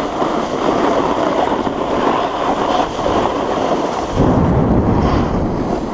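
Snowboard sliding and scraping over packed snow, with wind rushing over the board-mounted camera's microphone. About four seconds in, a heavier low wind buffeting joins in.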